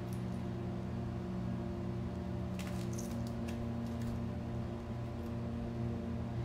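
A steady low drone of several held tones, with a few light clicks and rattles about two and a half to three and a half seconds in, as kittens bat at a feather wand toy and a small ball.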